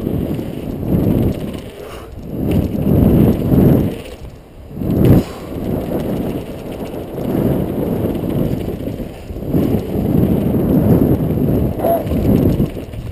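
Mountain bike descending a dirt jump trail: a rough rumble of wind on the helmet-mounted camera's microphone mixed with tyre and bike rattle. It swells and eases with speed, and is loudest around the first few seconds.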